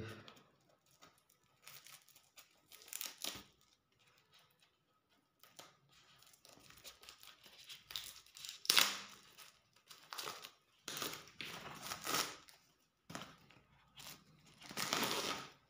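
Clear plastic shrink-wrap being torn and peeled off a boxed book set by hand, in irregular bursts of crinkling and tearing with short pauses between, the loudest tears near the middle and near the end.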